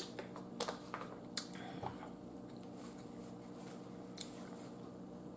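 Quiet eating and drinking sounds: a few soft clicks and mouth smacks as water is swallowed from a plastic bottle and the bottle is put down. Later there is a light rustle as a paper napkin wipes the mouth. A faint steady room hum runs underneath.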